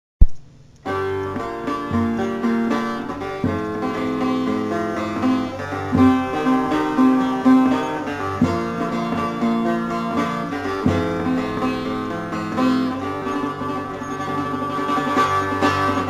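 A sharp click right at the start, then instrumental music led by a plucked string instrument, playing a slow melody.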